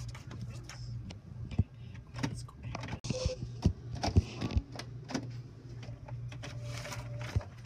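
Office all-in-one printer running: a steady low hum with scattered clicks and knocks of its mechanism and the paper.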